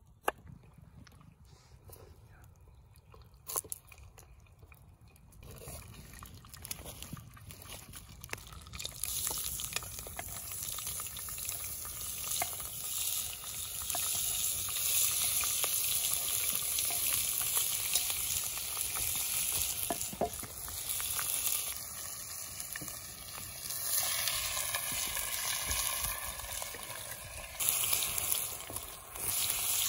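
A few light knife taps on a wooden cutting board, then pork and garlic sizzling in a hot cast-iron Dutch oven over a campfire; the sizzle builds from about eight seconds in and stays strong.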